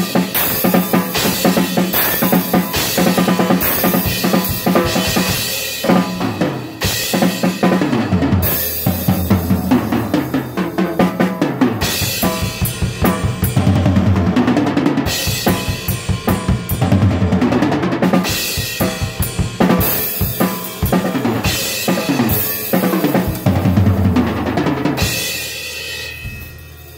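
A Tama acoustic drum kit played freestyle: busy bass drum and snare with tom fills and repeated cymbal crashes. Shortly before the end the playing stops and the cymbals ring out.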